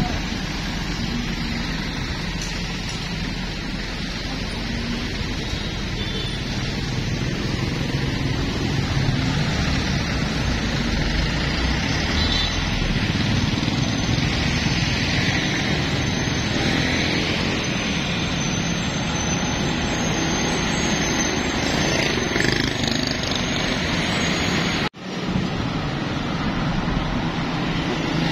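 Steady road traffic noise: vehicles running past with engine hum and tyre noise. It cuts out for a moment near the end.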